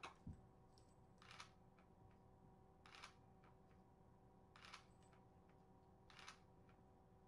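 DSLR camera shutter firing four times, about one and a half seconds apart, each shot a quick double clack of mirror and shutter. A brief soft thump just at the start.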